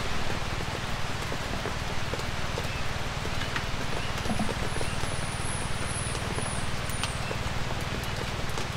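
Steady light rain falling in woodland, an even hiss with scattered drops ticking, over a steady low rumble.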